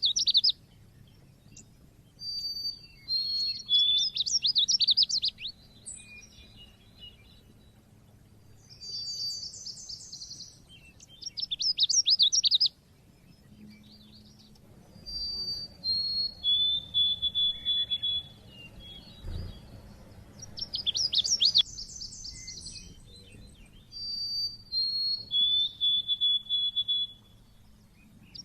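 A small songbird singing in repeated phrases: quick bursts of high trilling alternate with clear whistled notes that step down in pitch, with pauses of a second or two between phrases.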